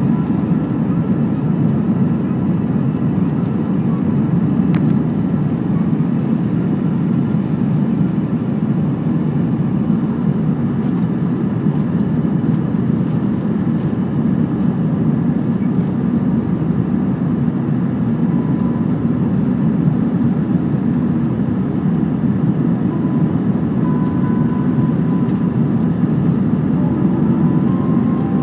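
Steady cabin roar of an Airbus A320 climbing after takeoff, engine and airflow noise heard from inside the cabin at a seat over the wing.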